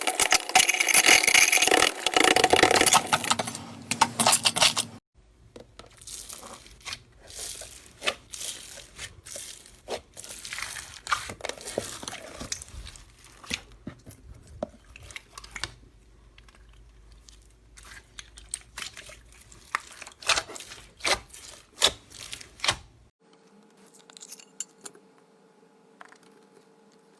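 Slime being squished and handled, making crackling, clicking and popping sounds. It is loud and dense for about the first five seconds, then turns to softer scattered clicks and pops. Near the end it goes quiet apart from a faint steady hum.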